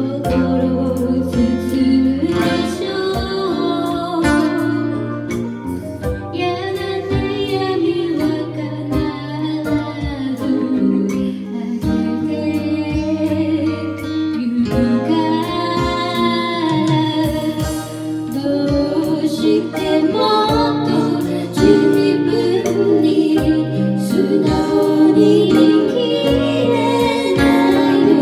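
Live band playing a song: a woman sings into a microphone over strummed acoustic guitar and electronic keyboard, with a steady beat.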